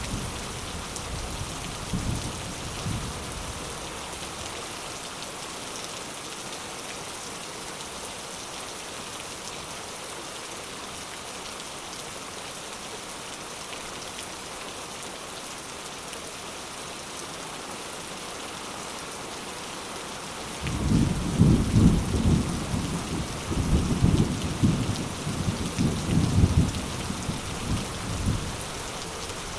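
Thunderstorm: steady heavy rain hissing throughout. Thunder rumbles away at the start, and a second, louder peal breaks suddenly about two-thirds of the way through and rolls on in several surges.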